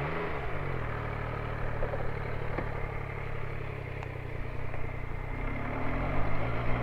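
Motorcycle engine running under way, with a short rise and fall in revs near the start and the pitch climbing near the end as the bike accelerates.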